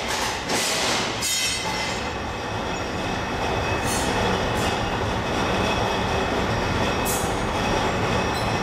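Steady industrial machinery noise, with a few thin high whining tones and several short hiss-like bursts.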